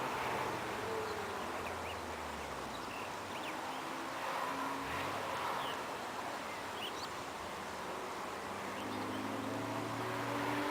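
A Porsche's engine fading away after passing, then a lull of outdoor hiss with a few faint chirps, and another Porsche engine drawing nearer, its note growing louder near the end.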